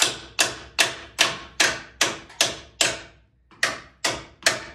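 Hammer blows on a stuck steel front suspension part, a fast, even run of sharp metallic strikes about two and a half a second, with a brief pause about three seconds in. The part is seized in place and is being beaten out.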